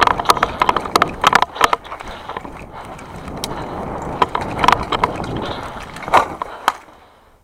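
Airsoft guns firing: sharp, irregular shots, some in quick strings of several, over a rustling haze, fading near the end.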